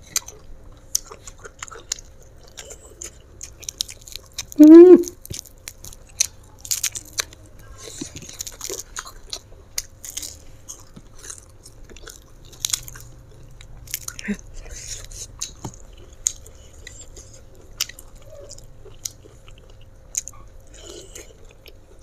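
Close-miked eating sounds: chewing and crunching of fried mackerel and rice eaten by hand, with many small wet clicks of mouth and fingers. About five seconds in, a short loud hum from the eater's voice, rising in pitch.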